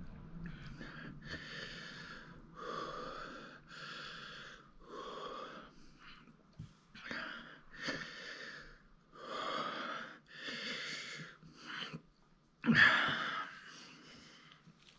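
A man breathing hard and wheezing, about ten heavy breaths with short gaps between them and one louder, sharper breath near the end. He is reacting to the burn of a Carolina Reaper chilli at the back of his throat.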